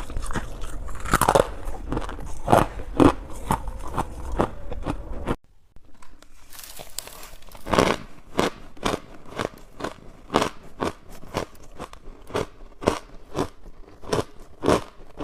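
Biting and chewing of hard freezer ice in a run of sharp crunches. About five seconds in it cuts off abruptly, and a somewhat quieter stretch of crunching follows.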